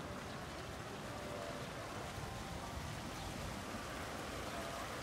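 Small motorboat passing along a canal: a steady wash of water from its churning wake, with no distinct engine note.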